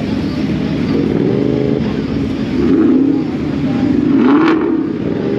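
Car engines running and revving, the pitch rising and falling several times, with a short hiss about four seconds in.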